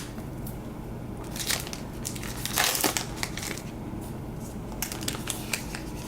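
Crinkling and rustling of a trading-card pack wrapper being handled, in a string of short crackles, loudest about two and a half seconds in.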